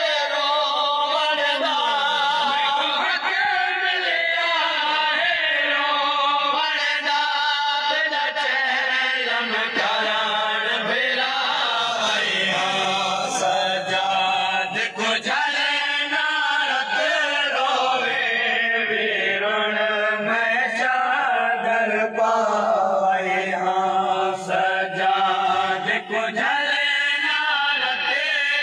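A group of men chanting a nauha (a Shia mourning lament) together, a lead reciter's voice carried along by the voices of the mourners around him.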